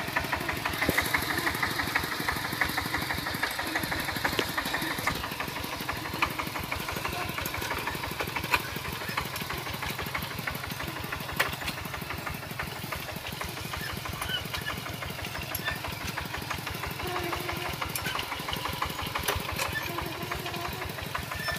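Kubota single-cylinder diesel engine on a two-wheel walking tractor, chugging steadily as it pulls a plough through soil.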